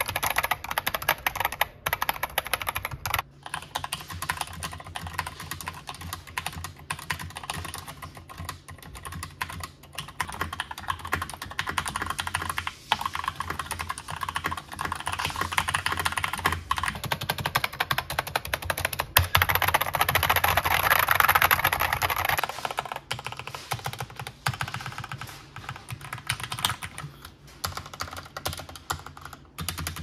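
Continuous fast typing on mechanical keyboards with Gateron switches, switching between keyboards a few times. It opens on unlubed Gateron Red linear switches, which sound hollow and louder, and moves on to a Keychron K2 with factory-lubed Gateron Brown and Red switches, which sound smoother.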